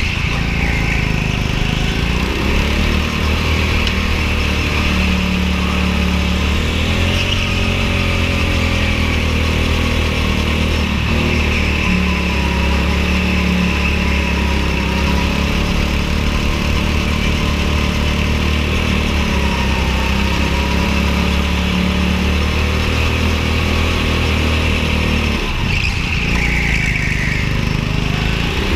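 Go-kart engine running hard under load, its pitch falling and climbing again several times as the kart slows and speeds up around the track.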